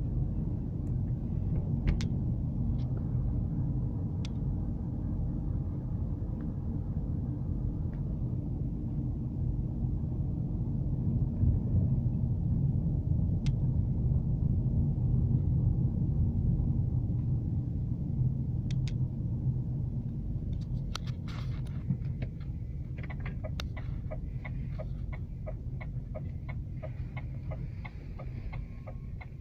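Opel Zafira's engine and road noise heard inside the cabin while driving slowly, a steady low rumble. About two-thirds of the way through, a fast regular ticking starts up and carries on to the end.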